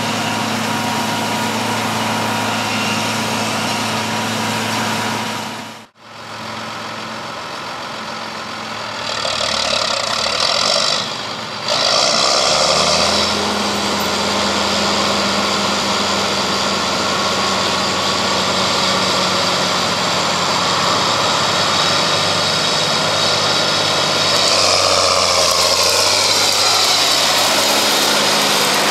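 Farm machinery diesel engines running steadily, in shots that cut abruptly about six and twelve seconds in. The engine note shifts in pitch near the end.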